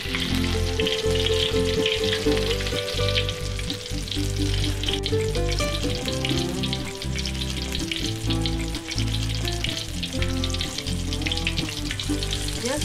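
Batter-coated prawn fritters deep-frying in hot oil in a wok: a steady crackling sizzle, with chopsticks moving them in the oil.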